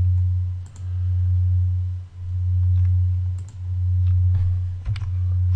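A loud, steady low hum that dips briefly about every second and a half, with a few soft computer mouse clicks.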